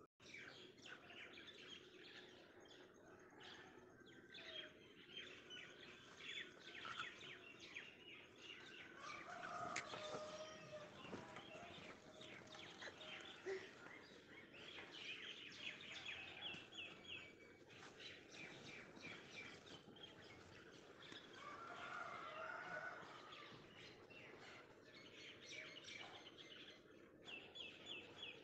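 Faint outdoor birdsong: repeated short high chirps and quick chattering trills, with now and then a lower warbling call.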